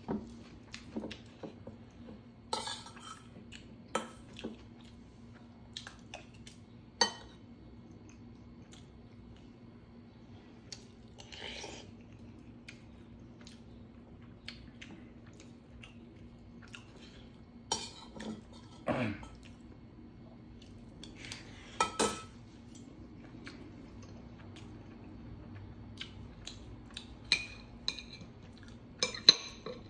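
Metal spoon and chopsticks clinking and scraping against a stainless steel bowl and ceramic dishes while eating, in irregular single clinks with pauses between them, some ringing briefly.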